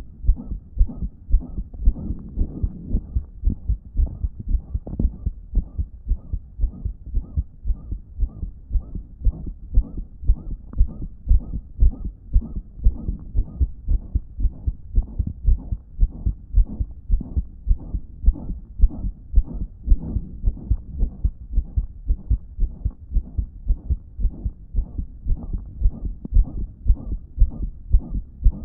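Human heartbeat heard close up: a steady, regular beat with a loud blowing murmur between the beats, which the owner takes as a damaged heart not pumping effectively.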